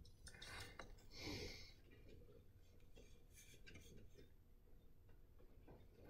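Near silence: faint room tone with a few soft clicks and one brief soft hiss about a second in.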